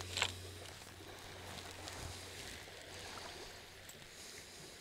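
Faint, steady wash of surf, with a short click just after the start.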